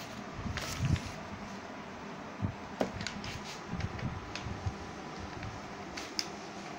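Steady low room noise with scattered light ticks and scratches of a coloured pencil drawing on paper over a clipboard, and a few soft low bumps.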